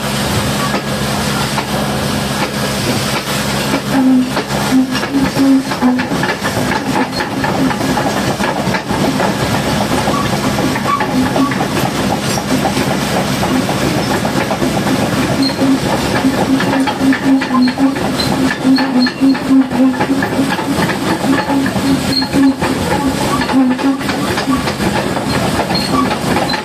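High-pressure water jet hissing steadily as it washes a Caterpillar D6R bulldozer, with a machine running underneath: a low steady hum at first, then an uneven low throb from about four seconds in.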